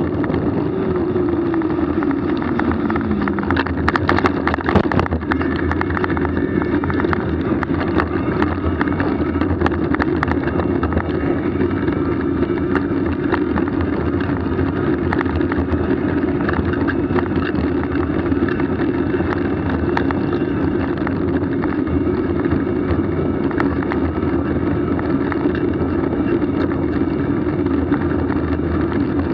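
Steady running noise of a moving vehicle, with a continuous droning tone. Near the start a second tone falls in pitch over a few seconds, and a short patch of rattling clicks comes about four seconds in.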